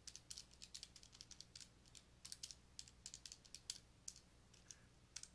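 Faint, quick runs of key clicks from a calculator as numbers are punched in, several presses a second with short pauses between.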